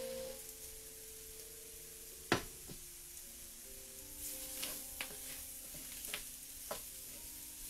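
Diced onion, green pepper and celery sautéing in a roux in a cast-iron skillet: a soft, steady sizzle while a wooden spoon stirs and knocks against the pan about five times, the sharpest knock a little over two seconds in. Background music with held notes plays underneath.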